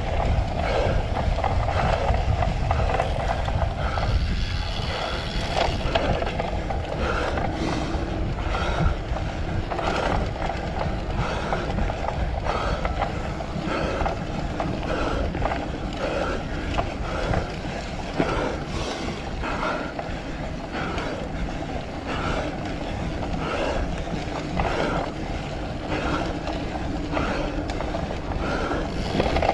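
Cyclocross bike riding over rough ground: tyres rumbling, the bike rattling and wind buffeting the microphone, with a faint pulse about once a second.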